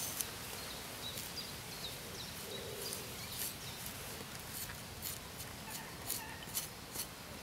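Light, irregular scraping strokes of a knife's spine along a fresh green bramble stem, stripping off the outer bark. Birds call faintly in the background.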